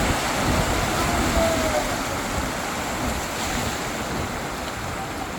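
Steady rushing of water on flooded streets, with wind buffeting the microphone.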